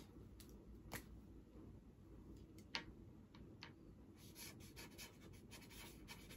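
Faint scratching of a pen writing an autograph on a merch item, with a few light clicks and taps, more of them about four to five seconds in.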